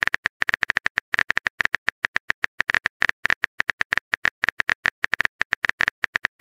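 Phone keyboard typing clicks, as a sound effect: rapid, irregular taps, several a second, while a text message is typed out letter by letter.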